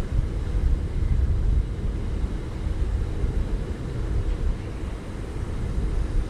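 Wind buffeting the microphone: an uneven low rumble that swells and dips throughout.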